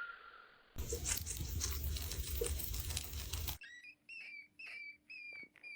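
Pet hamster squeaking: a run of short, high squeaks, about two a second, in the second half. Before that comes a stretch of rustling and scrabbling noise.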